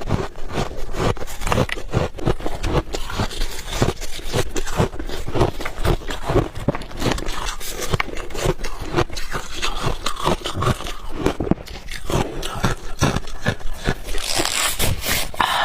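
Close-miked chewing and crunching of refrozen ice balls: a dense, irregular run of crisp crunches.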